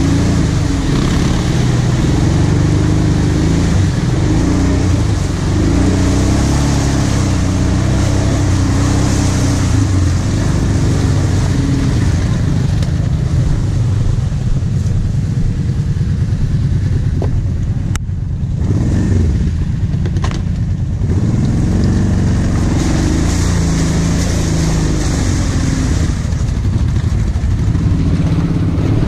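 Quad (ATV) engine running under varying throttle through deep mud, its revs rising and falling. About two-thirds of the way through the throttle briefly drops off, then picks up again.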